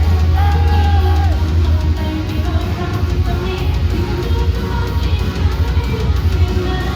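Loud, heavy rock music with distorted electric guitar and drum kit. A held melodic note bends and falls away in the first second or so.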